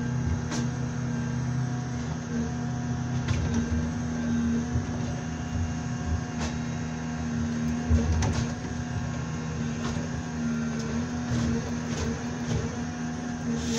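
Komatsu 901XC forest harvester's engine and hydraulics running with a steady drone and hum, heard from inside the cab, while the harvester head grips and processes a birch stem, with scattered sharp knocks and clicks from the head.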